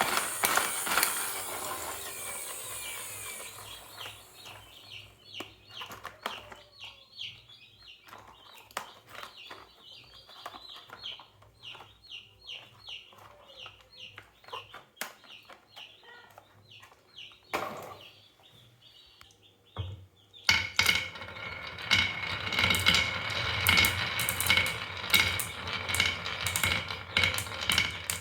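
Marbles rolling down a wooden HABA marble run, clicking and clacking as they drop from piece to piece. At first the knocks come singly at irregular intervals, and from about two-thirds of the way in they crowd into a dense, louder clatter.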